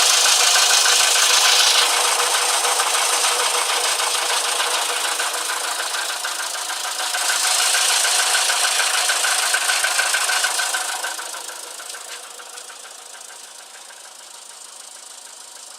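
Volkswagen Polo Sedan petrol engine running with a fast, even knock, the kind the owner puts down to the piston group. It is louder for a few seconds from about seven seconds in, then settles quieter.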